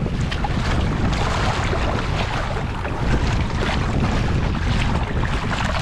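Wind buffeting the microphone over the wash of choppy sea, with water splashing as a double-bladed kayak paddle dips in stroke after stroke.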